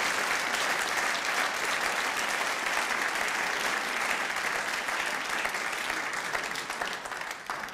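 Theatre audience applauding, a dense steady clapping that dies away near the end.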